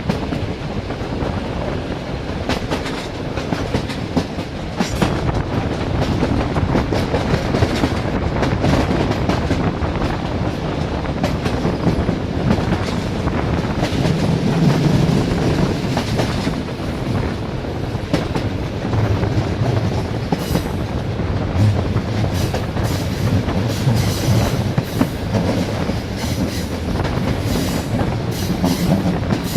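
Passenger train wheels rolling over the rails at speed, with a continuous clickety-clack of wheel strikes at the rail joints over a steady low rumble.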